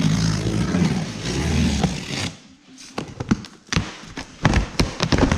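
New seats being handled and pulled from their packaging: a couple of seconds of rustling and scraping, then a series of knocks and taps.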